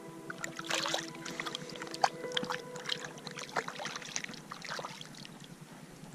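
Light water splashes and drips close by as a small pike is slipped back into the water from a float tube, irregular and dying away after about five seconds, with one sharper splash just after two seconds in.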